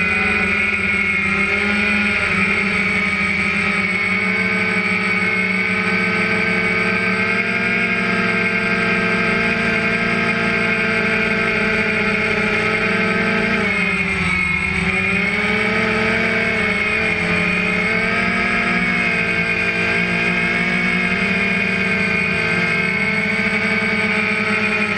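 DJI Phantom 1 quadcopter's electric motors and propellers whining steadily, picked up close by the GoPro mounted on the drone. The pitch of the whine dips briefly and comes back up about halfway through.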